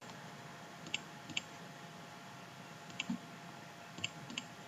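Faint computer mouse clicks, about five at irregular intervals, over a low steady hiss.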